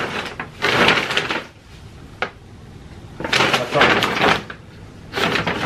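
Paper delivery bags rustling and crinkling as they are lifted and rummaged through, in two spells, with a single sharp click about two seconds in.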